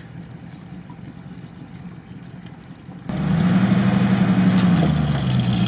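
A faint engine hum, then about three seconds in the GAZ-66 army truck's engine running loud and close. Its revs sag and then pick up again near the end.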